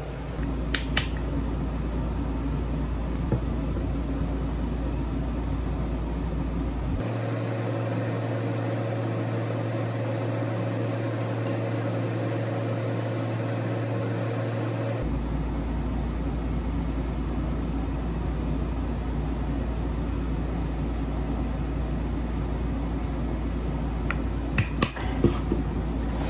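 Steady low hum of room or appliance noise, with a few sharp clicks about a second in and again near the end; the hum changes in tone for several seconds in the middle.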